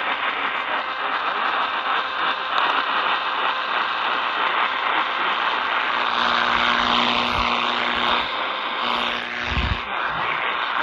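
Steady hiss and static from an Eton Elite Traveler portable radio's speaker, tuned to an AM station, with a few low thumps near the end.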